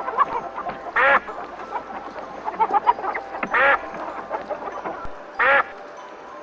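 Ducks quacking: three loud quacks, about a second in, past the middle and near the end, with softer, rapid quacking chatter between them.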